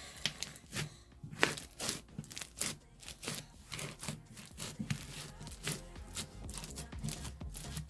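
Pink floam slime packed with polystyrene beads being squeezed and kneaded by hand, giving a quick, irregular run of crunchy crackles and pops.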